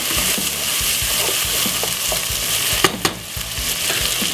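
Chopped white onion, spring onion, garlic and ginger sizzling in hot oil in a pot, with a wooden spoon stirring and scraping through them; two sharp knocks come about three seconds in.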